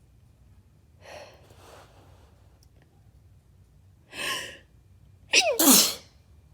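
A woman's induced sneezing fit. A faint breath comes about a second in and a louder gasping breath just after four seconds, then a forceful sneeze with a falling voiced cry just after five seconds, the loudest sound.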